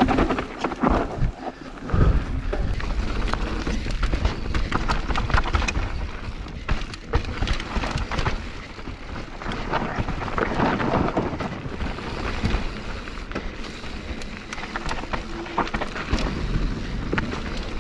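Mountain bike descending a dirt trail at speed: continuous tyre noise and wind rumble on the camera microphone, with the bike rattling and knocking over bumps throughout.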